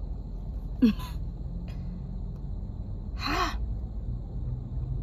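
A woman's short breathy vocal sounds: a quick gasp with a falling pitch about a second in, and a longer breathy exhale around three seconds, over a steady low rumble in a car cabin.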